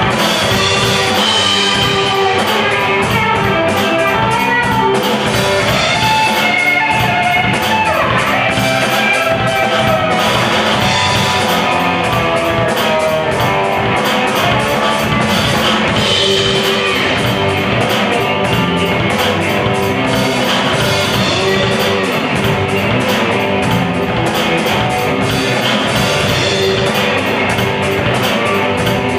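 Live rock band playing: electric guitar over bass guitar and a drum kit.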